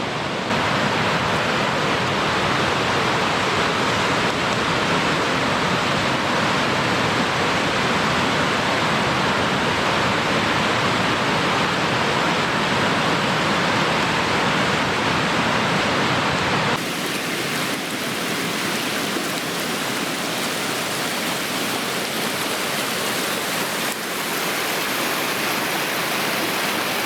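Steady rushing roar of whitewater from the North York River's falls and rapids. The sound changes slightly about two-thirds of the way through.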